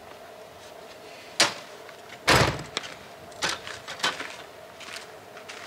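A truck camper's rear door being opened and shut and a folding metal step ladder knocking as a person climbs out: a string of short knocks and clatters, the loudest about two seconds in.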